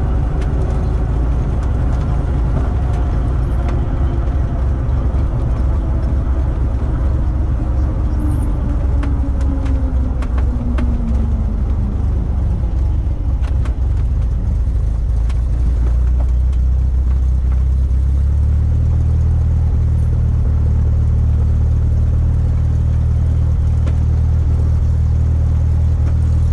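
Cessna 172 rolling out on the runway after landing, its engine at idle under steady wind and tyre rumble. A tone falls steadily over the first dozen seconds as the plane slows, a few light clicks follow, and a steady low drone takes over later on.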